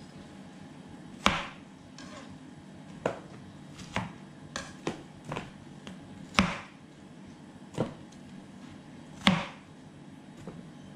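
Kitchen knife slicing through watermelon and knocking on the cutting board: irregular chops, about ten of them, the three loudest a few seconds apart.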